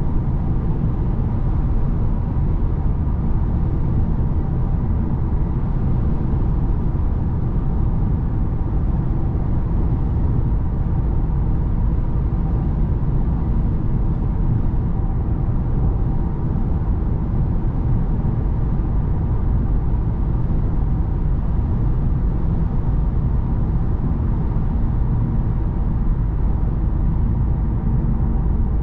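Steady cabin noise of an Audi A6 cruising at motorway speed: tyre and road rumble with engine and wind noise, mostly deep and unchanging.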